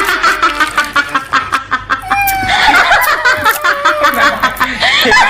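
A person laughing in a long run of rapid, pulsing bursts, with a short break about two seconds in.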